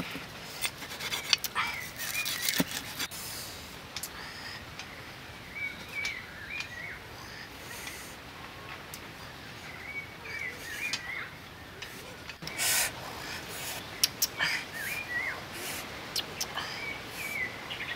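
Scattered sharp knocks of a cleaver chopping on a wooden chopping block, with small birds chirping in short phrases now and then.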